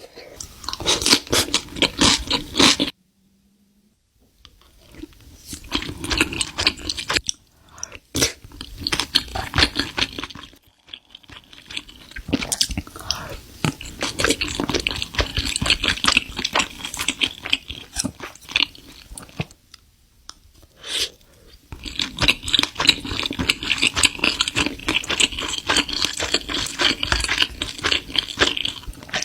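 Close-miked crunchy chewing and biting of food, in several stretches of rapid crunches broken by short pauses.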